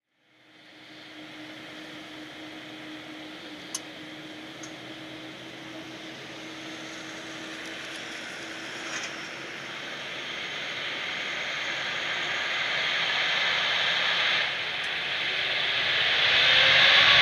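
Jet airliner's engines, growing steadily louder as the aircraft comes nearer, with a steady low hum that fades out about halfway and a couple of sharp ticks a few seconds in.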